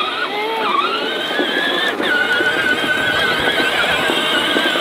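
Electric ride-on toy tractors (kids' John Deere type) driving over bumpy grass: a steady high whine from the motors and gearboxes, wavering in pitch near the start, with the rough rumble of the plastic wheels on the ground.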